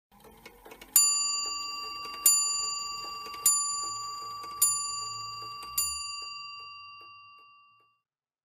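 A clock striking five times, about a second and a quarter apart, each stroke a bell-like tone that rings on and fades. The last stroke dies away about two seconds later. A few faint clicks come just before the first stroke.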